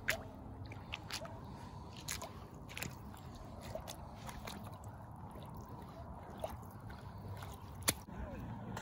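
Boots stepping on thin, wet ice covering a frozen pond, the ice crunching with a few sharp cracks; the loudest crack comes near the end. A low steady rumble runs underneath.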